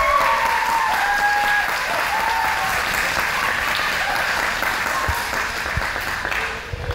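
Audience applauding, with a few voices calling out over the clapping in the first two seconds; the applause dies away near the end.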